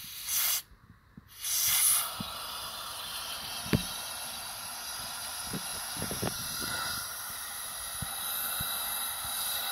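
Compressed air hissing from an air blow nozzle pressed into a port of a Detroit DD15 diesel cylinder head filled with soapy water, spraying the water, to find valves that leak past their seats. Two short blasts come first, then a long steady blast. A sharp knock comes about four seconds in.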